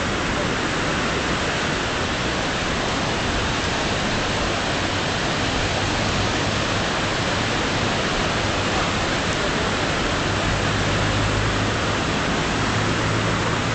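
Steady rushing of the flooded Tiber river's fast, swollen current, with a faint low hum joining about ten seconds in.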